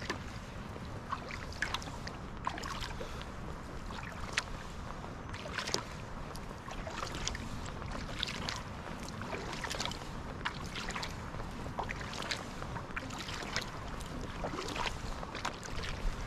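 Kayak paddle strokes: the blades dip in and water splashes and drips off them in irregular little bursts, over a steady low rumble.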